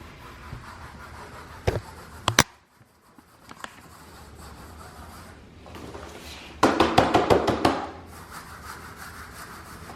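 Dry rubbing and scratching strokes as dried catnip is worked between the hands. There are two sharp clicks about two seconds in, and a loud burst of quick rasping strokes about seven seconds in.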